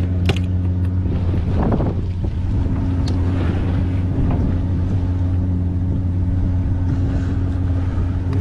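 A fishing boat's engine running steadily, a constant low hum, with a few sharp clicks near the start and a brief rustle about two seconds in.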